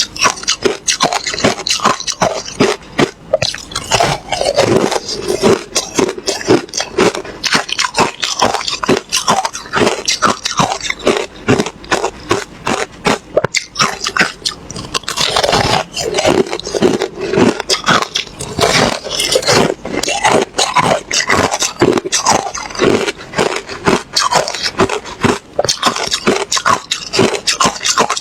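Someone chewing ice, close to the microphone: a rapid, unbroken run of loud, sharp crunches, several a second.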